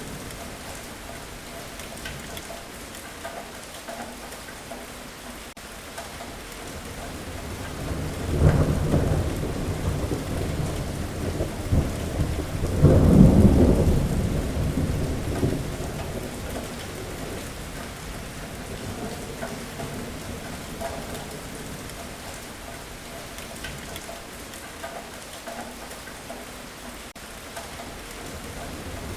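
Steady heavy rain with a long roll of thunder that builds about eight seconds in, peaks as the loudest part around thirteen seconds, and dies away a few seconds later, leaving the rain alone.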